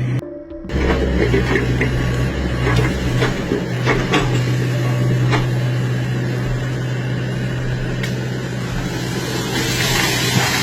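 Heavy machinery engine running steadily, with scattered sharp knocks and cracks over it. The sound cuts out briefly just after the start.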